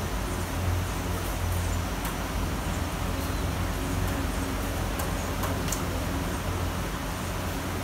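Steady city rain: an even hiss with scattered sharp drop ticks, over a low, steady rumble of traffic.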